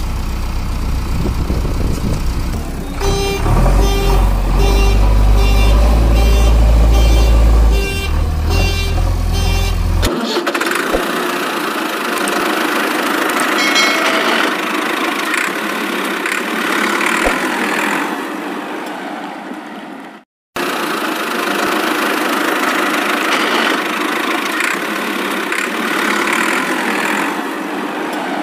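Engine sound of a heavy vehicle. A deep rumble runs with a string of short beeping tones, about two a second, through the first third. After a sudden change about ten seconds in, it gives way to a thinner, rougher engine-like noise, broken by a brief dropout about twenty seconds in.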